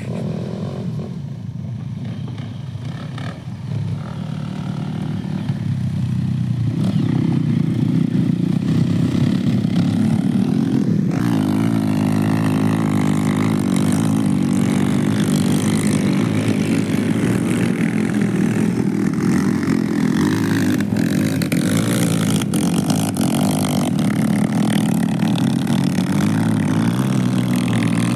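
Off-road motorcycle engines running and revving, growing louder about six seconds in, the pitch rising and falling.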